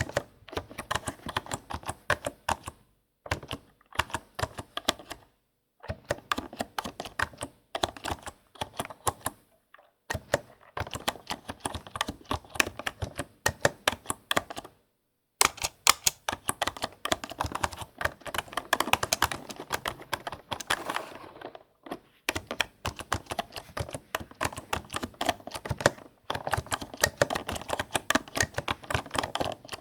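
Computer keyboard being typed on in fast runs of crisp key clicks, broken every few seconds by brief pauses.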